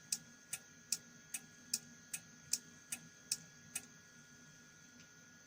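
Car alarm control unit's relay clicking in a steady rhythm, about two and a half clicks a second, then stopping near the end. It is switching in answer to the remote's button press, a sign that the repaired board is working again.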